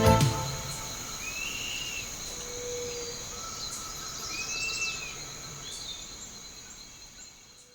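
Outdoor ambience: a steady high insect drone with a bird giving two short calls, about two and a half and four and a half seconds in. The whole sound fades out near the end.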